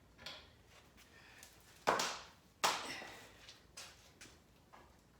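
A few sharp knocks and clatters of parts and tools being handled during an engine teardown. The two loudest come about two and two and a half seconds in, with lighter taps around them.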